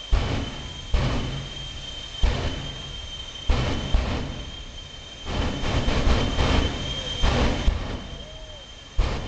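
The twin jet engines of a jet-powered drag truck sit in place with their afterburners pulsing. Sudden loud blasts come roughly once a second, each dying away, over a steady high whine.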